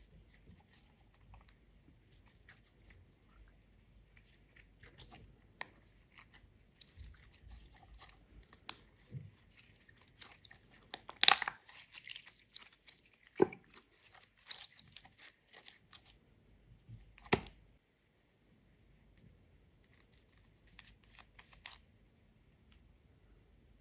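Clear glitter slime being stretched and squeezed by hand, making scattered sticky clicks and pops, with a few louder snaps in the middle.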